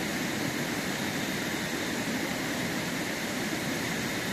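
Portable butane cartridge stove burning on a high flame, giving a steady rushing hiss.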